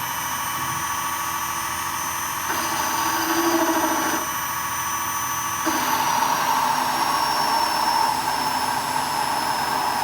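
Electric machine-tool motor running steadily with a high whine, its tone shifting abruptly about two and a half seconds in and twice more a few seconds later.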